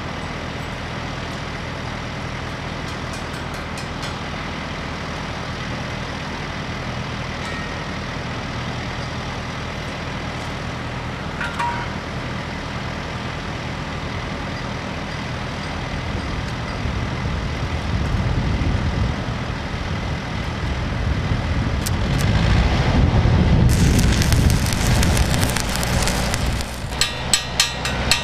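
An engine runs steadily throughout, growing louder and heavier about two-thirds of the way in, with a stretch of loud hiss. Near the end, a quick run of sharp metal hammer strikes begins, several a second.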